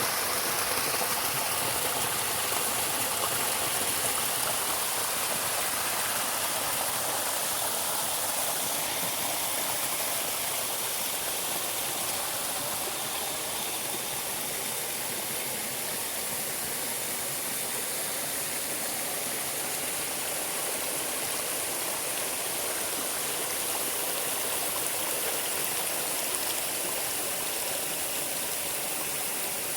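Running water, a stream rushing steadily without a break.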